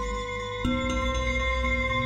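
Music of several steady held tones layered at different pitches, changing to a new set of notes a little over half a second in.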